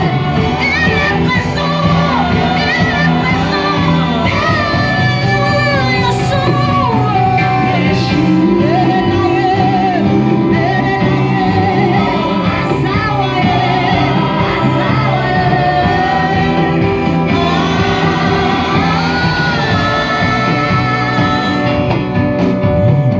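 Loud gospel worship music: a band with a steady repeating bass line under sung melody, with some shouting from the congregation in a large hall.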